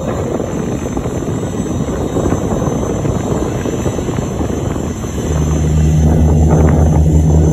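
Airbus A380's four Rolls-Royce Trent 900 turbofans running as it taxis away, a dense steady rumble. About five seconds in a steady low hum joins and the sound gets a little louder.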